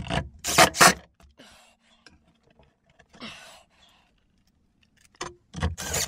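Cordless Milwaukee drill driver run in short bursts on the screws of a plastic inline duct fan's housing, about half a second in and again near the end.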